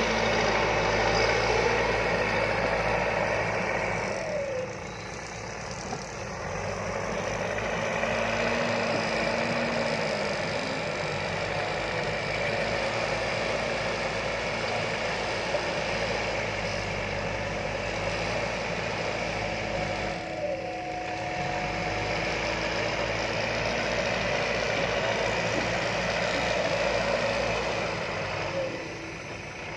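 Diesel engine of a heavy construction machine (backhoe loader or excavator) running steadily under work. Its note drops briefly three times, about 5, 20 and 29 seconds in, before picking up again.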